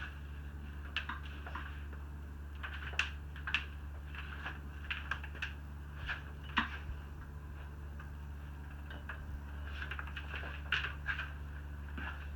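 Scattered light clicks and knocks of an extension cord and plug being handled, over a steady low hum.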